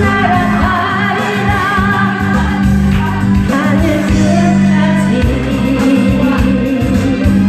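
Music with a singer's voice carrying a wavering melody over a steady accompaniment with a held bass note.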